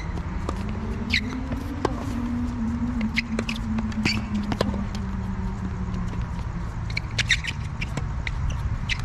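Tennis rally on an outdoor hard court: scattered sharp racket-on-ball hits and ball bounces, with short high shoe squeaks. Under it runs a steady low rumble and a low hum that rises in pitch over the first two seconds, then holds.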